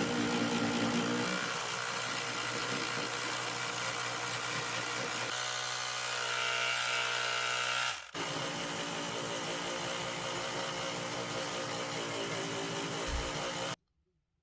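Small electric motor of a power tool running steadily in a few edited stretches, its pitch shifting between them, then cutting off abruptly near the end.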